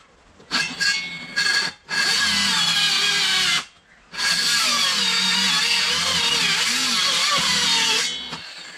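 Power drill running in several bursts: two short ones, then one of nearly two seconds and a long one of about four seconds that stops about eight seconds in. Its pitch sags and recovers under load.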